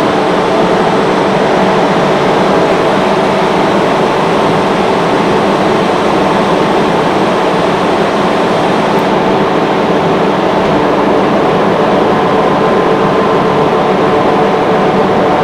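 Industrial screw air compressor running: a loud, steady mechanical drone with several steady hum tones over an even rushing noise.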